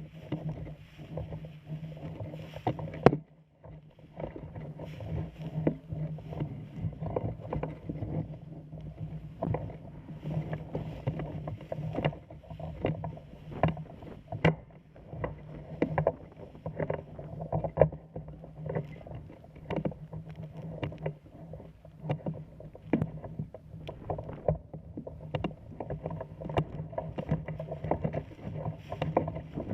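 Steady low hum with irregular knocks and rustles, typical of noise from a camera carried while moving. One sharp, loud knock comes about three seconds in.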